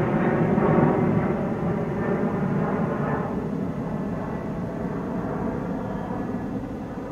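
Steady engine drone, slowly fading away.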